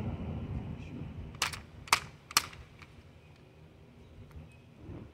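Sharp mechanical clicks from an Umarex T4E HDR .68-calibre CO2 air pistol, three about half a second apart with a few fainter ones later, but no shot: the CO2 cartridge has not been punctured, so the gun does not fire.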